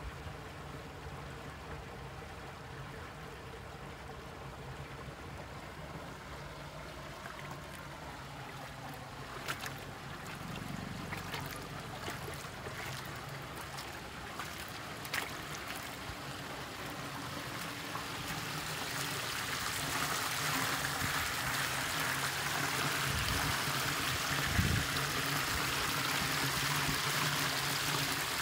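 Muddy runoff water flowing down a shallow drainage channel, growing louder in the second half as it rushes over rocks, with a few light clicks along the way.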